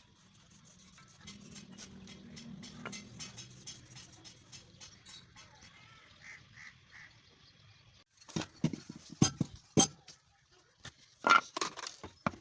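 Faint scraping and clicking, then several sharp knocks in quick succession about eight seconds in and again near the end.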